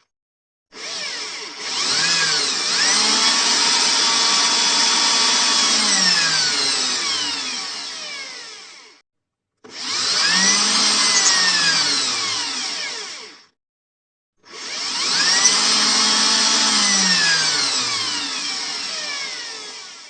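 Electric drill running in three separate runs with short dead-silent gaps between them. In each run the motor whine climbs in pitch as it spins up, holds, then falls as it winds down.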